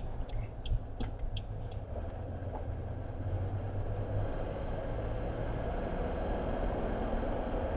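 A car driving, its engine and road noise making a steady low rumble. A turn indicator ticks about three times a second and stops a little under two seconds in, as the car makes a turn.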